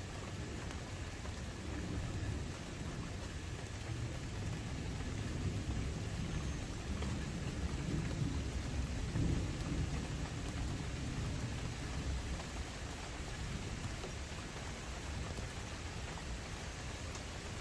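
Steady rain with a low rumble of distant thunder, which swells and then fades about halfway through.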